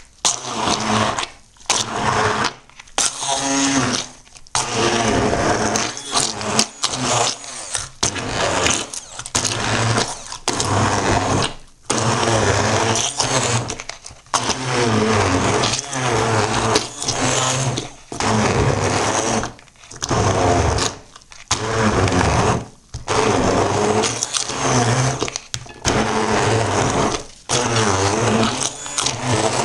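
Immersion blender run in repeated short bursts, stopping briefly every second or two, its motor whirring as the blade purées chopped peeled lemons, oranges, grapefruit and garlic into an even mash.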